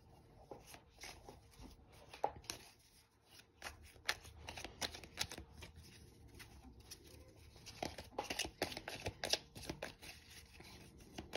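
A deck of tarot cards being shuffled by hand: soft card flicks and slides, sparse at first and coming thick and fast in the last few seconds.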